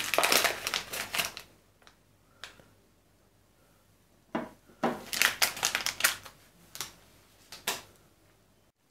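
Plastic bag crinkling and rustling as it is opened and a brushless drone motor is taken out, in two spells with a pause between, mixed with a few light clicks and knocks as the motor and bag are set down on a wooden table.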